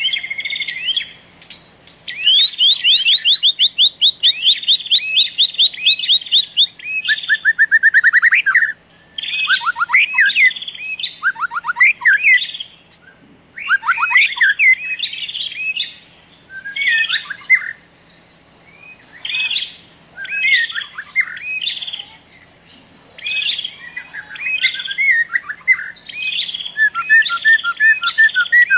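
A songbird singing loud, varied phrases of whistles and rapid trills, a second or two apart with short pauses between.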